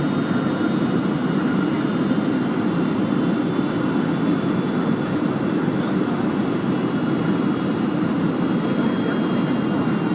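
Cabin noise of a Boeing 757 airliner coming in to land: a steady, even low rumble of engines and airflow, with faint steady whines higher up.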